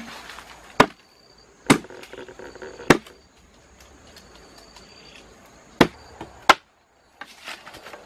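A series of sharp knocks, five at uneven spacing, over a faint steady high background tone.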